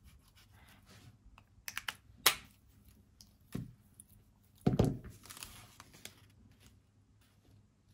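Small clicks and taps of paint markers and paper being handled on a desk, with one louder knock a little under five seconds in and a short rustle of paper just after it.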